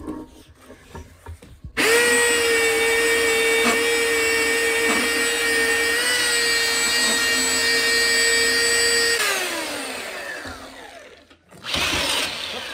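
Handheld Black+Decker belt sander starting up about two seconds in and running against the end grain of a cedar board with a steady whine. It is switched off later and winds down, its pitch falling as it stops.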